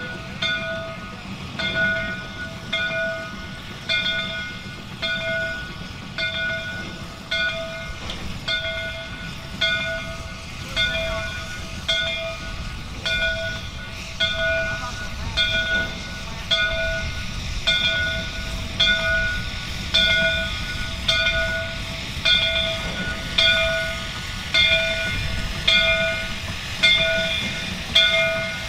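A railway bell ringing steadily about once a second over the low rumble of a train.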